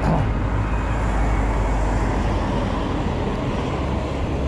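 Steady road noise from riding a fat-tyre e-bike in traffic: tyres rolling on tarmac and cars in the road ahead, under a constant low rumble, with a brief louder knock right at the start.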